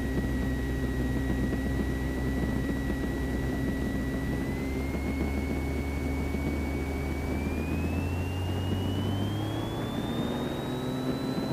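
Extra 300L's engine and propeller running at full takeoff power during the takeoff roll and climb-out: a steady dense hum whose low notes shift about two-thirds of the way through. A thin high whine steps up in pitch over the second half.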